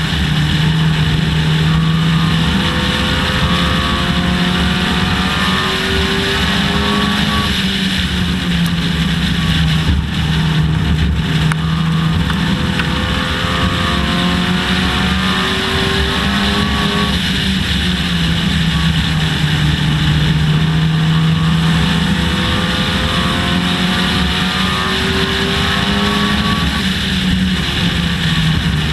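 Dodge Neon race car's four-cylinder engine under racing load, its pitch climbing for several seconds and then dropping, again and again as it laps the oval, under steady wind and road hiss.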